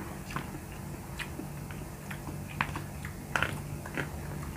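Eating sounds at a meal: about five small sharp clicks and taps over a few seconds, over a low steady hum.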